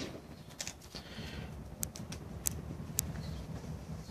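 Faint scattered clicks, about six short ticks spread over the few seconds, over a low, steady rumble.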